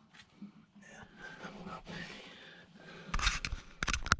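Scraping and scrubbing on the corroded spot of a metal boat water tank, cleaning it for a sealant patch: soft rubbing at first, then a run of loud, quick scrapes about three seconds in and again near the end.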